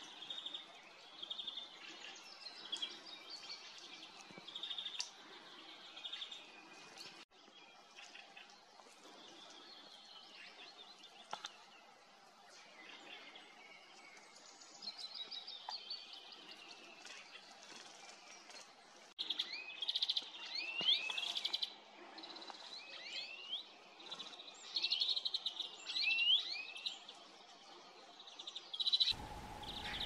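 Small forest songbirds, European greenfinches among them, calling and singing: short repeated chirps and falling trills, then a run of loud, quick up-and-down sweeping calls in the second half. About a second before the end the birdsong gives way abruptly to a steady low background hum.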